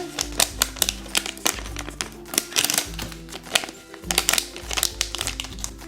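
A foil blind-bag pouch being torn open and handled: irregular, dense crinkling and clicking of the packaging.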